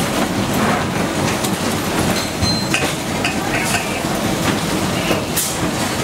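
Steady din of the machines on a motor stator production line, with scattered clicks and clatter and a brief high tone about two seconds in.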